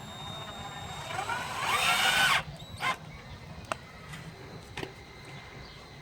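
Cordless drill-driver driving a screw: the motor whines up in pitch for about a second and a half and stops abruptly, followed by a short second burst and a few light clicks.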